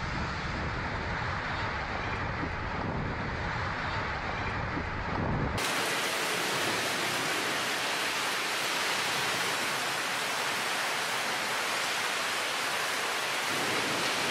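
Strong wind buffeting the microphone with a deep, rumbling roar. About five and a half seconds in it cuts to the steady hiss of heavy rain pouring down.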